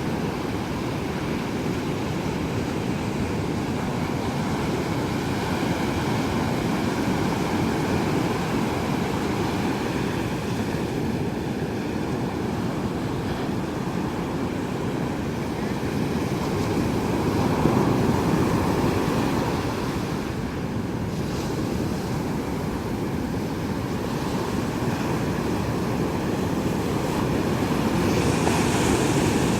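Surf washing on a beach with wind buffeting the microphone, under a faint steady engine drone. It swells louder briefly about two-thirds of the way in and again near the end.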